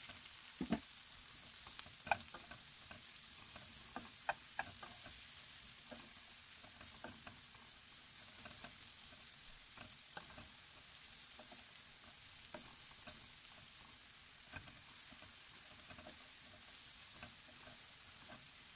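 Sliced mushrooms sizzling in a nonstick pan with a garlic-flavoured fat while being stirred with a wooden spoon, which knocks against the pan now and then; the sharpest knocks come about one and two seconds in.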